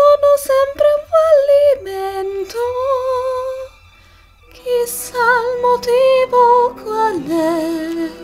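A woman singing a slow song melody with vibrato over soft accompaniment, in two phrases with a short pause about four seconds in.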